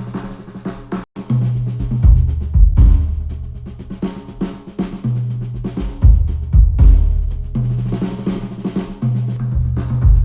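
Drum-driven instrumental music with a kick and snare beat over a deep held bass line, playing back through over-ear headphones and picked up by microphones on a measurement rig. The music stops dead for an instant about a second in.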